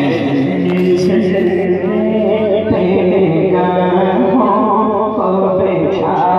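A man singing a devotional Urdu naat in a drawn-out, melodic chanting style, the voice carrying on without a break.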